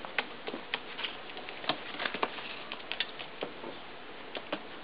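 Light, irregular taps and clicks on a cloth-covered tabletop, a few a second and unevenly spaced, as a pigeon is coaxed to peck grain.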